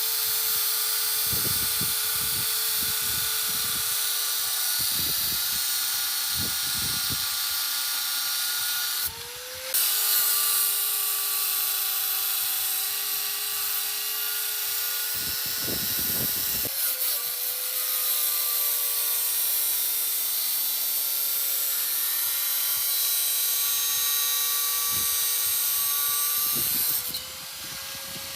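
Angle grinder cutting steadily, its motor whine sitting lower under load over a harsh cutting hiss. About a third of the way in and again near the end, the loudness drops and the whine rises in pitch as the disc comes free of the cut.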